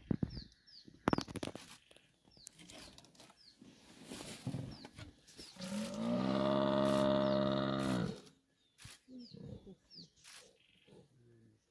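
A Cape buffalo bull bellowing in distress as lions pull it down: one long, loud bellow of about two and a half seconds midway. Scattered knocks come early, and a bird's short falling chirps repeat faintly throughout.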